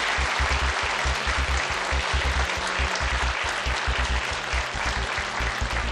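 Studio audience applauding, over the game show's music with a pulsing bass beat underneath.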